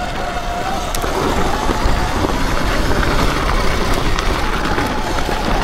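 Sur-Ron electric dirt bike being ridden: wind buffets the microphone with a heavy rumble, and the electric motor's whine wavers in pitch above it, fading and coming back near the end.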